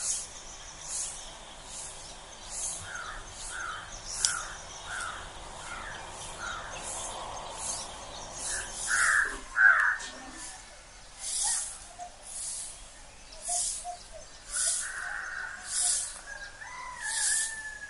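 Village morning birdsong: several birds calling at once, with a high, thin chirp repeating about once a second, a run of shorter mid-pitched calls early on, and a few louder calls around the middle and near the end.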